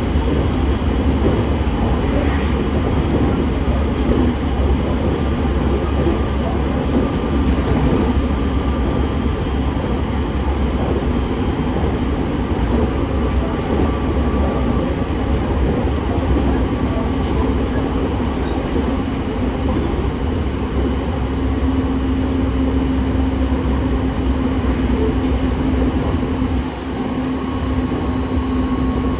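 Running noise inside a JR East 209 series (2100 subseries) electric commuter train at speed: a steady rumble of wheels on rail and the car's running gear. A faint steady hum joins about two-thirds of the way through, and the noise dips briefly near the end.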